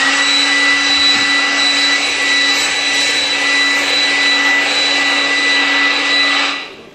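Electric dryer blowing: the motor spins up with a rising whine, runs steadily with a hum and rushing air, then winds down about six and a half seconds in.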